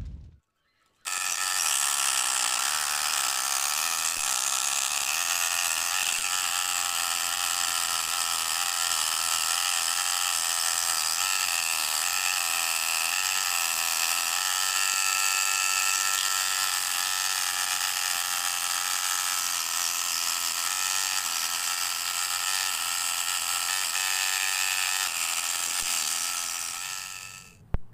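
Homemade scroll saw driven by a 12 V DC 775 motor running steadily, its fine blade reciprocating as it cuts a curve through thin plywood, a fast, even buzzing whine. It starts about a second in and dies away near the end.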